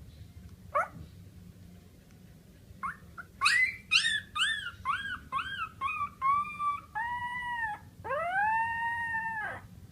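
A dog howling: one short rising yip, then a run of quick rising-and-falling yelps that lengthen into one long held howl near the end.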